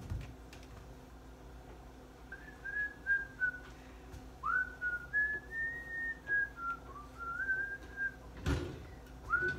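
A person whistling a tune in short, sliding notes, starting about two seconds in. A single thump sounds about eight and a half seconds in.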